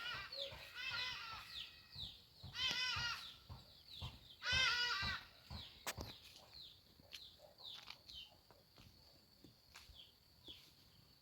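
Farm animal calls: two wavering cries, about 2.5 and 4.5 seconds in, over faint scattered chirps.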